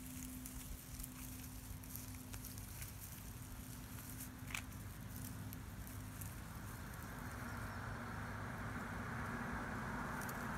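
Faint outdoor background noise: a steady low hum with light patter and rustling, one brief sharp chirp-like sound about four and a half seconds in, and a rushing noise that swells over the last few seconds.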